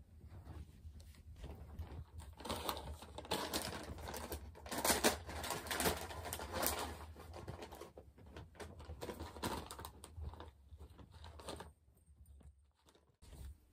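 Netherland dwarf rabbit scampering on a sheet-covered floor: rapid, irregular paw taps and rustles that thin out and stop about twelve seconds in, over a steady low hum.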